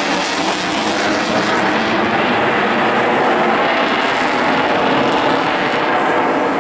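Eurofighter Typhoon's twin Eurojet EJ200 turbofans roaring loud and steady on a display pass, the roar growing duller after about two seconds.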